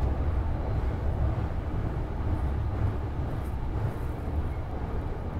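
Marine Liner rapid train running across the Seto-Ohashi Bridge, heard from inside the passenger car: a steady low rumble with a fainter hiss above it, easing slightly.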